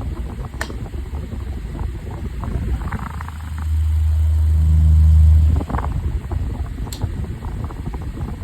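Air King 9102 12-inch table fan running on high and oscillating, its airflow rumbling on the microphone; the rumble and a low hum swell to their loudest from about three and a half to five and a half seconds in, with a couple of sharp clicks.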